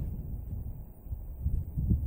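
Wind buffeting the camera microphone: low, uneven rumble that swells and dips, strongest near the end.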